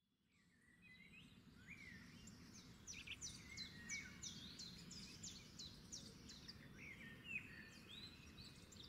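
Faint birdsong: many short, high notes sweeping downward, mixed with lower whistles, over a low steady background rumble. It fades in over the first couple of seconds.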